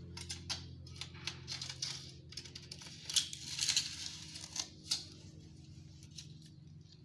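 Stainless steel corner edge trim being handled and set against the edge of a glazed tile: a run of light clicks and taps, with a short scraping rustle about three to four seconds in.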